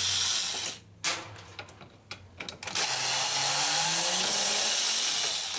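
Electric screwdriver backing out the screws that hold a washing machine's transmission assembly. One run of the motor stops just under a second in, then come a few clicks, and a second, longer run starts about three seconds in.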